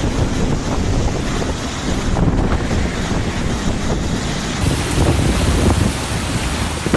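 Storm wind buffeting the microphone over rough sea surf, a steady loud rumbling noise with no clear breaks.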